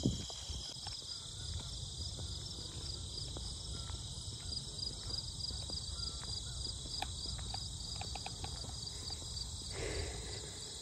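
Steady high-pitched chorus of insects buzzing and trilling in a summer meadow, with a regular pulse. Beneath it are the soft footsteps of someone walking on a paved trail, and a pant near the end.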